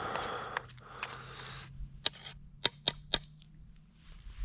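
A spoon scraping in thick porridge in a camp pot, then clicking and tapping against the pot: a few sharp taps in quick succession about two to three seconds in.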